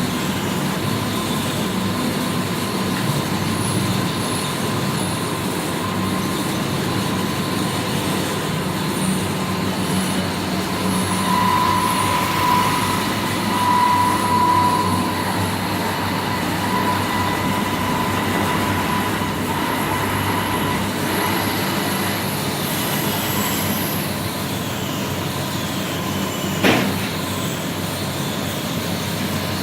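Gauze-roll cutting machine running steadily: a continuous mechanical clatter with a steady whine. Near the end one short, sharp squeal drops quickly in pitch.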